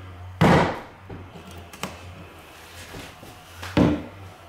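Fencing pliers levering at the nails of a wooden window stop: two sharp cracks, about half a second in and near the end, with a few faint ticks between.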